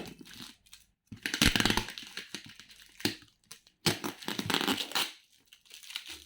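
Parcel packaging being crumpled and torn open by hand, in two loud rustling spells of about a second each with small crackles between.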